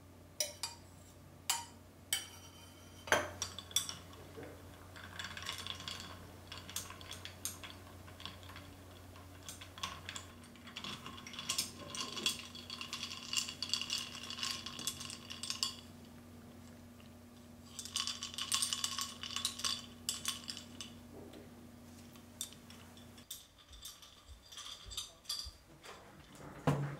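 Metal spoon clinking and rattling against a drinking glass while stirring a drink, in two long spells of quick clinks after a few single taps. A faint steady hum lies underneath until about three-quarters of the way through.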